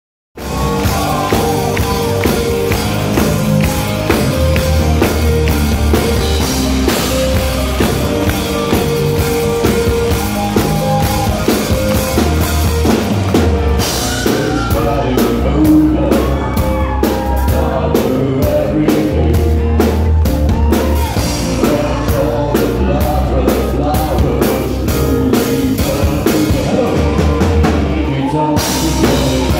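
Rock band playing live at full volume: drum kit with a steady beat, bass and electric guitars, and keyboards.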